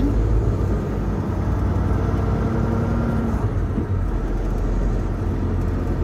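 Diesel engine of a Volvo semi truck running steadily with a low rumble, heard from inside the cab.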